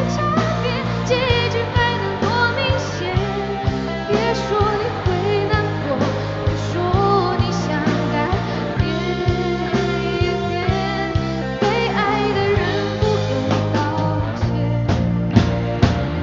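Live pop band music with a sung melody over a steady drum beat.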